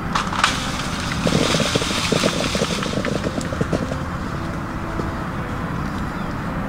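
A motor running steadily with a low rumble, with a run of rattling knocks between about one and four seconds in.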